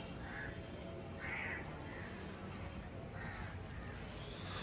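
Birds calling: several short separate calls, the strongest about a second and a half in, over a steady low background hum.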